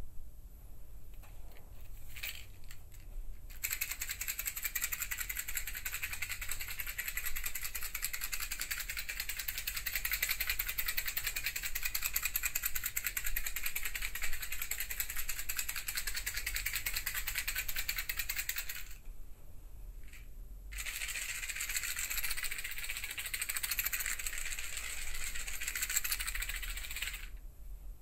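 Rapid, dense rattling of small hard objects shaken together, as a binaural recording for headphones. It runs for about fifteen seconds, stops for about two seconds, then comes back for about six more.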